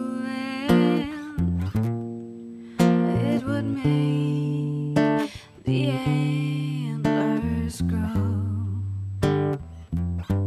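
Martin acoustic guitar strumming chords while a woman sings over it in phrases, her held notes wavering.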